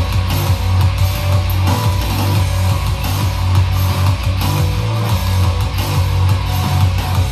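Rock music with guitar and a heavy, steady bass played loud through a Pioneer PBM5 portable party speaker, set to its rock EQ.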